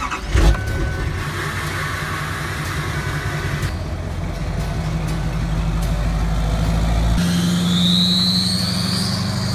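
Diesel engine of a Chevrolet 2500HD pickup starting with a short loud burst about half a second in, then running steadily and pulling away, growing louder. A high whistle rises in pitch over the last couple of seconds as the truck accelerates.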